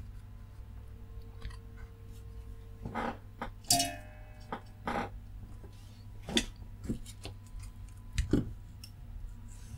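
Scattered light knocks and clicks of a circuit board being turned over and handled on a workbench, and a length of solder wire being drawn out, over a low steady hum. A short squeak falling in pitch comes just under four seconds in.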